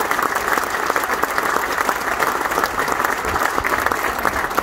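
Audience applauding: many hands clapping together at a steady level, with no let-up.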